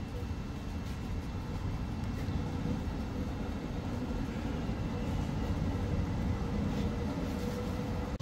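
Tram running on its track: a steady low rumble that grows slightly louder, with a faint steady whine above it.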